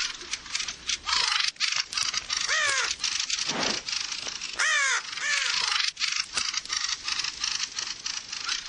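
A mob of fieldfares giving harsh, rapid chattering alarm calls without pause, with loud falling cawing calls from the raven they are attacking cutting in a few times, loudest about five seconds in.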